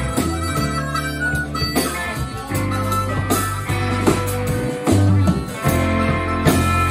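Live rock band playing an instrumental passage: electric guitar, bass guitar and drum kit, with regular drum hits over a steady bass line.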